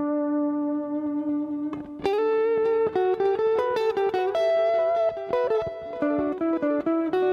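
Background guitar music: an electric guitar holds one long note, then about two seconds in breaks into a quick run of plucked notes.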